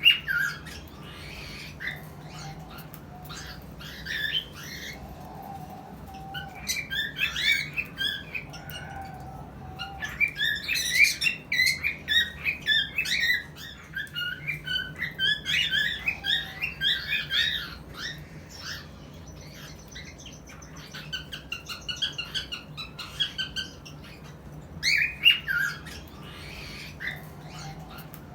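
Cockatiels chirping and squawking in rapid bursts of short notes, with quieter gaps between the bursts. A faint steady low hum runs underneath.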